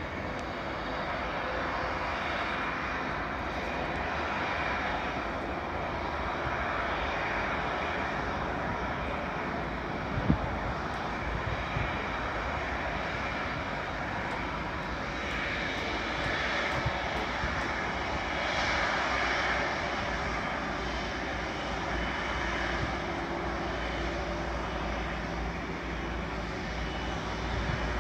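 Steady jet-engine noise of a twin-engine wide-body airliner, an Airbus A330, taxiing at low power: an even, continuous rushing sound. One short knock about ten seconds in.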